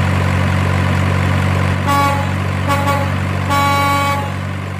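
Truck engine running with a steady low hum while a truck horn toots three times, the third toot the longest.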